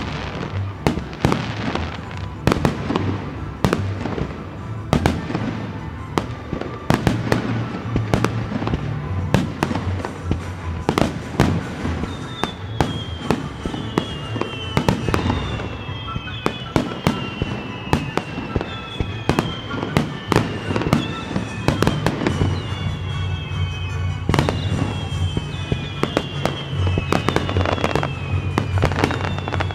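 Fireworks display: a rapid run of aerial shells bursting with sharp bangs and crackle, over music playing. In the second half a falling whistle repeats about once a second.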